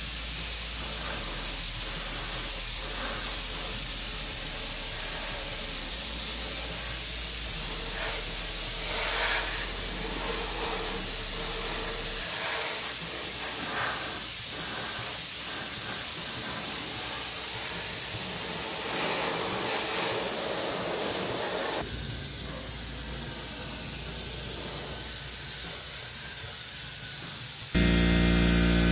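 Compressed-air paint spray gun hissing steadily as single-stage paint is sprayed, with music underneath. The hiss drops lower after about twenty seconds, and near the end a steady machine hum takes over.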